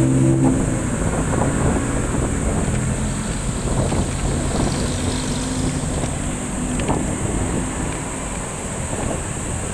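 Engine running steadily at idle.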